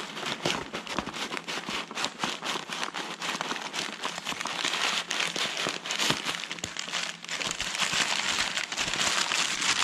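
Packing material crinkling and rustling as a shipping package is unpacked by hand, with many small irregular crackles and clicks.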